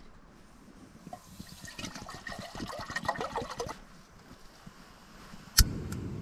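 Small gas canister camping stove being handled, with a second or two of light metallic clinking and rattling. Near the end comes one sharp click, the stove's igniter, and at once a steady low rush as the burner lights.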